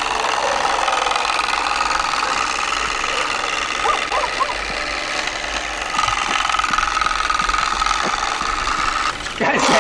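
DIY turbospoke on a child's bicycle: a strip of plastic milk bottle flicking against the turning spokes, with a plastic bottle mounted as a mock exhaust. It makes a rapid, steady clatter like a small motorbike.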